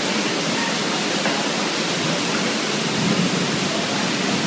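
Heavy rain falling steadily on flooded ground, an even, unbroken rush of noise.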